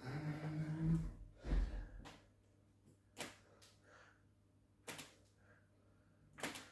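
Chiropractic treatment sounds: a short low groan held about a second, then a heavy thump, then three sharp clicks spaced about a second and a half apart.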